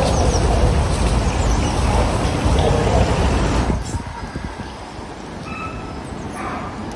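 Steady outdoor background rumble, loud and even, that drops off sharply about four seconds in to a quieter background with a few faint short high tones.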